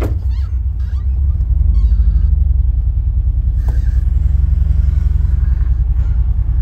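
VW Syncro van's rebuilt 2.1 L water-cooled flat-four boxer engine with stainless sport exhaust running, heard from inside the cab as a steady low rumble that grows louder about a second and a half in. A short click near the middle.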